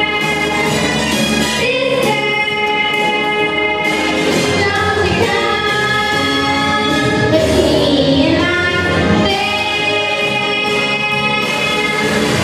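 Two young girls singing a duet into handheld microphones, holding long notes.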